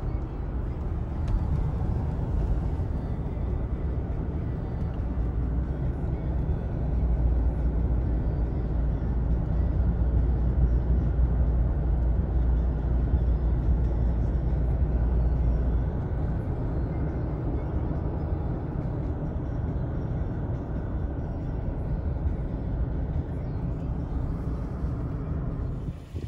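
Road and engine noise inside a moving vehicle's cabin: a steady low rumble that swells louder for about ten seconds in the middle, then settles back.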